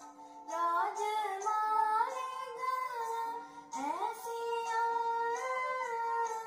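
A girl singing a Sinhala song solo in Eastern classical style, with held notes and two long upward slides in pitch, over a quiet instrumental backing.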